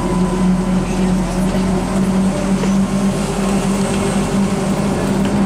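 Electric cart driving on wet asphalt: a steady low hum over an even rushing noise.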